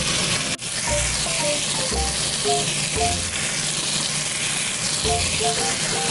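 Marinated chicken pieces sizzling as they fry in hot ghee with onions in a pot, a steady hiss that briefly cuts out about half a second in.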